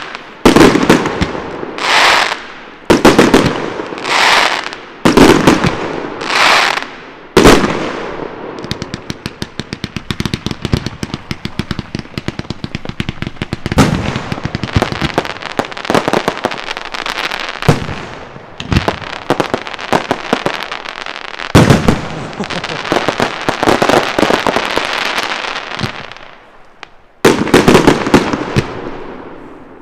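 Aerial fireworks display: about seven loud bangs in the first eight seconds, each trailed by a second-long hiss. Then comes a run of rapid, evenly spaced pops about five a second, followed by dense crackling with a few heavier bangs. After a short lull near the end, a fresh string of loud bursts begins.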